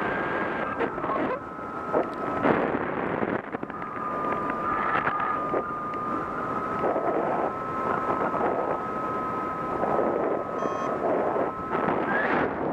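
Wind buffeting an action camera's microphone in paraglider flight. A steady high tone runs over it, breaks off for a moment about three seconds in, then holds until near the end.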